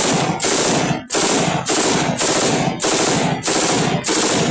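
AK-47 assault rifle sound effect: automatic fire in short bursts of about half a second each, one after another with brief gaps, some eight bursts in all.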